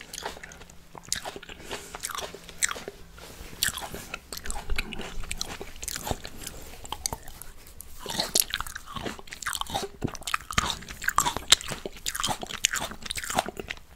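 Close-miked chewing of red grapes: a string of short crunching clicks as they are bitten and chewed, busier in the second half.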